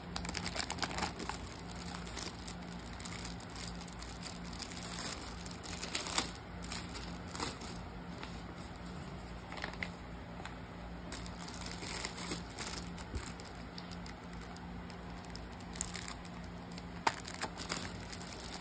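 Clear plastic packaging crinkling and crackling as hands handle and unwrap a plastic-wrapped binder and a pack of paper refills, in irregular sharp crackles over a steady low hum.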